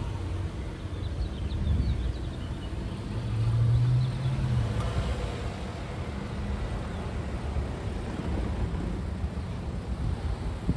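A car driving slowly past close by; its engine hum swells to its loudest about four seconds in. A gusty low rumble of wind on the microphone runs underneath.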